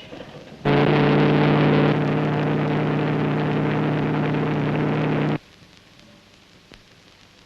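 Cunard ocean liner's steam whistle giving one long, deep blast of nearly five seconds that cuts off sharply, heard through the steady hiss of an old film soundtrack.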